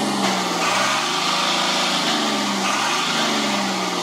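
Diesel engine of an oil tanker truck running, its speed dipping and rising twice as the accelerator is pressed and let go for an exhaust smoke check.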